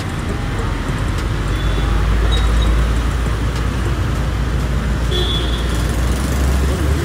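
Jeep Wrangler Rubicon running close by at low speed, a steady low rumble that swells a little around the middle, with street traffic around. Two brief high tones sound about two and a half and five seconds in.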